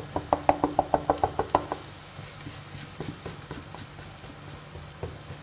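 Light utensil taps against a kadai: a quick run of sharp taps, about eight a second, for under two seconds, then a few scattered clicks.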